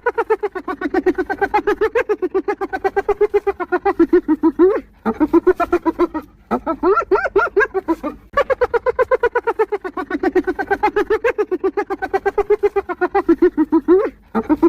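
Spotted hyena laughing: a rapid run of short pitched hoots, several a second, in long bouts broken by a few brief pauses.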